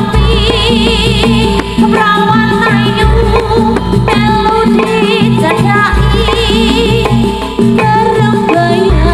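Jaranan music played loud through a sound system: a singing voice with heavy vibrato over sustained instrument tones and drums, with a deep bass note returning about every three seconds.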